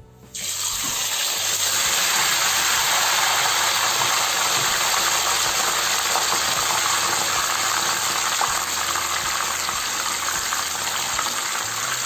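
Whole marinated gourami fish dropped into hot oil in a wok and deep-frying. The sizzling starts suddenly just after the fish goes in, then holds as a loud, steady hiss of bubbling oil.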